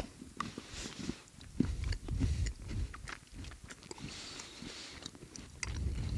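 A person chewing a whole Galbo, a chocolate-covered biscuit bite, with small crunches and mouth clicks.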